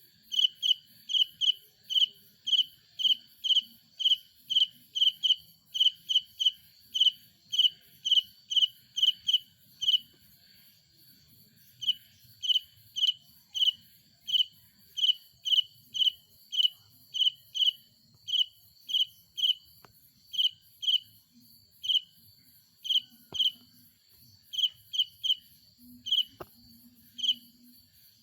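A cricket chirping by rubbing its wings together (stridulation): short, high-pitched chirps at about two a second. The chirps pause for about two seconds around ten seconds in, then resume less regularly, over a faint steady high hum.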